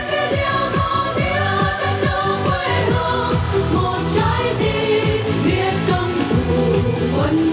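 Vietnamese song sung by performers on microphones over an amplified backing track with a steady beat.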